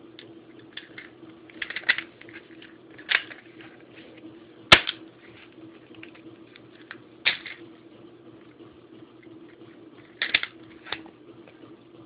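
Scattered small clicks and rattles from handling an airsoft revolver and its shells during loading, with one sharp, loud click just under five seconds in.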